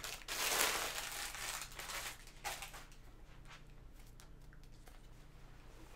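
Crinkly plastic wrapping crackling and rustling as a folded fabric scarf is pulled out of it, dying down to faint rustles after about two and a half seconds.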